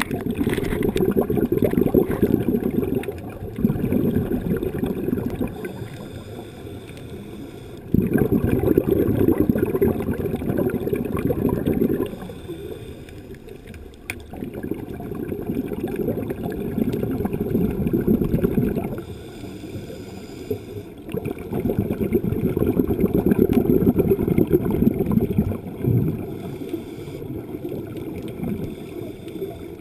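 Muffled underwater bubbling and gurgling of scuba divers' exhaled regulator bubbles, heard through a camera housing. It comes in surges of a few seconds with quieter gaps between.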